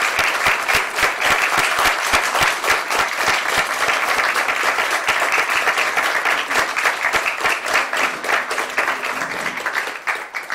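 An audience clapping in a sustained round of applause that dies away near the end.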